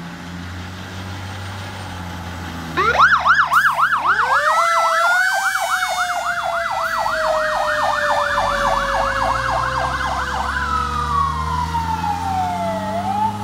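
Fire engine sirens starting up as the truck pulls out: an electronic siren yelping fast, about four rises and falls a second, together with a Federal Q mechanical siren winding up and then slowly coasting down in pitch. Near the end the electronic siren switches to a slow wail that falls and then rises again. The truck's engine runs underneath.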